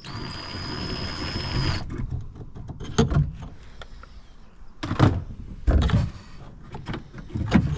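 Small electric screwdriver motor whirring steadily for about two seconds, driving out a T25 Torx screw. It is followed by several sharp clicks and knocks of the tool and loosened parts.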